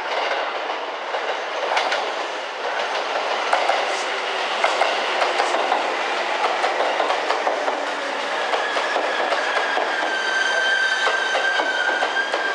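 JR 651 series seven-car electric express train pulling into the station, its wheels clacking over the rail joints in a quick rhythm. A steady high-pitched whine sets in about two-thirds of the way through as it slows.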